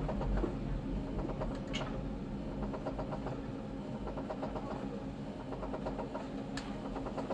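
Toronto subway train running on the track, heard from on board: a steady rumble and hum of wheels and motors with faint repeated rail clicks. There are two brief high squeaks, one about two seconds in and one near the end.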